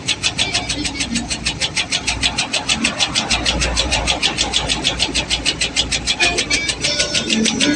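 Automatic tobacco shredding machine running, chopping leaf in a steady, even rhythm of about six strokes a second.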